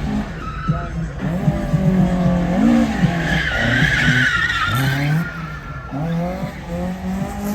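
Drifting car's engine revving up and down between gear changes while its rear tyres squeal in a slide, the squeal at its loudest about three to five seconds in.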